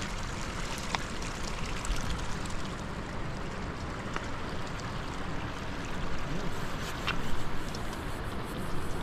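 Steady rushing noise of running water, with a few faint clicks scattered through it.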